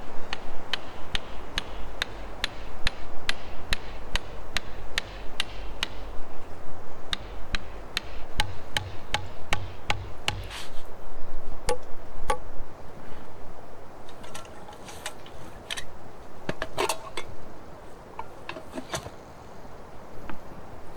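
A hand tool striking repeatedly with hammer-like blows, about two or three a second, in two steady runs, then slower scattered knocks with a quick flurry of hits later on.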